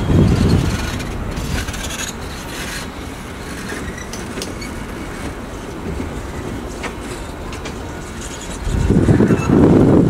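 Passenger train cars rolling past over a steel girder bridge, wheels rumbling and clattering on the rails. The low rumble swells at the start and again near the end, with a few sharp clicks between.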